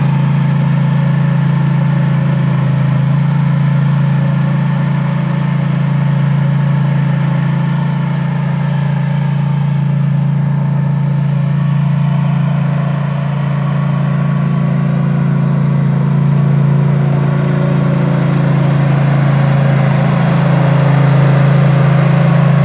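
Engine of an AS-Motor AS 940 Sherpa 4WD RC remote-controlled slope mower running steadily as the mower drives across grass, a constant low hum that swells slightly near the end.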